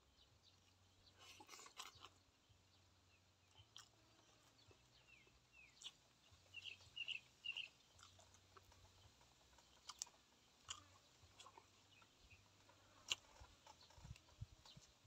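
Faint, close chewing and mouth sounds of a person eating, with scattered small clicks and crackles as fresh leaves are picked apart by hand.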